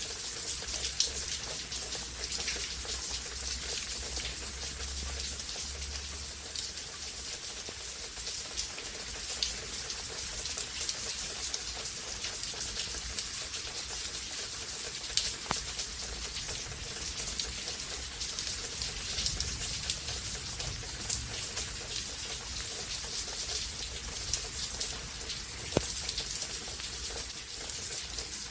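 Steady rain falling, with many close raindrops ticking and pattering on nearby surfaces and an occasional louder drip.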